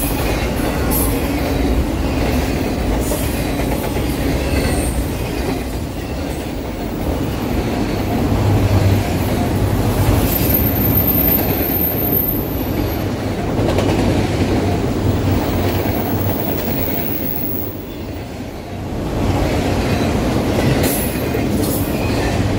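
Autorack freight cars rolling past on steel rails, a steady wheel rumble with occasional clacks over rail joints. A thin, very high wheel squeal rings out for a couple of seconds about halfway through, and the last car is going by near the end.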